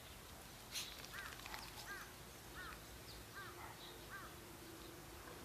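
A faint click, then a series of five short, arched animal calls evenly spaced about two-thirds of a second apart.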